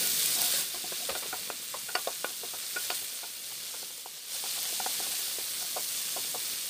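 Minced garlic sizzling in hot oil in a nonstick wok, fried to bring out its aroma, while a wooden spatula stirs it with frequent light clicks and scrapes against the pan. The sizzle eases for about a second in the middle, then picks up again.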